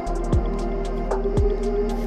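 Background music of held, sustained tones, with two short falling sweeps, one about a third of a second in and one about a second and a half in, and light ticks running through it.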